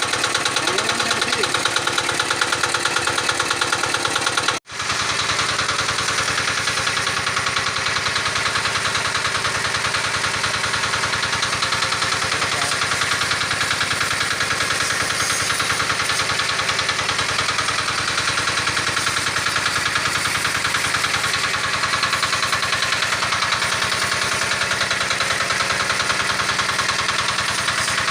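Portable high-pressure washing machine running steadily with a fast, even pulsing beat. The sound drops out for an instant about four and a half seconds in, then carries on unchanged.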